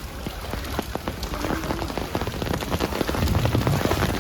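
Heavy rain falling, with many sharp ticks of drops striking close by.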